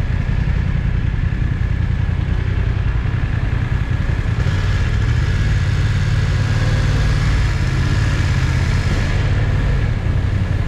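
Motorcycle engine running at low speed in stop-and-go traffic, mixed with heavy wind rumble on the helmet camera's built-in microphone. From about four seconds in the engine and a hiss grow stronger as the bike picks up speed on the wet road.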